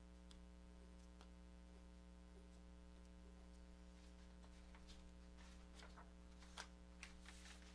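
Near silence: room tone with a steady low electrical hum and a few faint clicks and taps. The clicks come more often in the second half, the sharpest about two-thirds of the way through.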